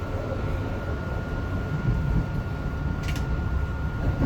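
Metro-North M3 electric multiple-unit train running along the track, heard from inside the front of the train: a steady low rumble with a thin constant whine, and a brief sharp click about three seconds in.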